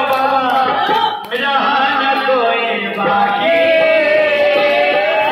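Hindu devotional bhajan: a male lead singer through a microphone with harmonium accompaniment and the gathering chanting along, with scattered hand claps. From about three and a half seconds in a long note is held.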